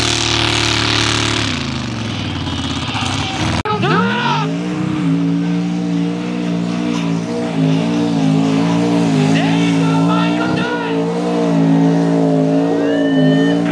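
Mud racing trucks' engines at high revs in the mud: one truck's engine winding down, then after a sudden cut another truck's engine revving up and held at high revs, wavering as it pulls through the mud hole.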